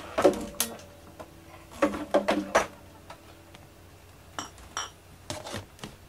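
Knocks and clinks of hard objects being handled, a few with a short ringing tone. They come in a cluster at the start and another around two seconds in, with a few lighter clicks near the end.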